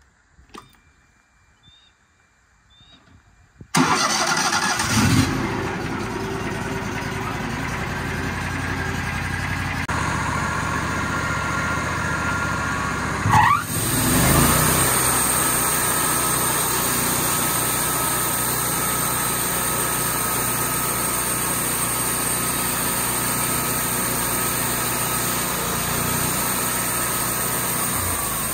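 An engine starts up about four seconds in and then runs steadily, with a brief rev about halfway through.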